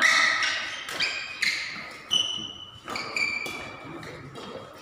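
Doubles badminton rally: a string of sharp racket hits on the shuttlecock, with short high squeaks from shoes on the court floor.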